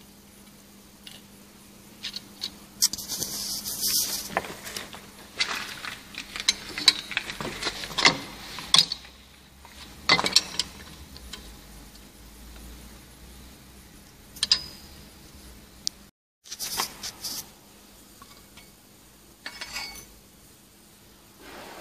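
Steel sheet, toggle clamp and loose steel swarf being handled on a drill-press vise: irregular metallic clinks, scrapes and rattles, busiest in the first half, over a steady low hum.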